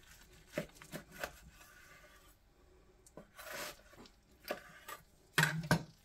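Knife cutting the rib bones off a smoked prime rib roast: several short scraping strokes along the bone, a longer slicing stroke about three and a half seconds in, and a few louder knocks on the wooden cutting board near the end.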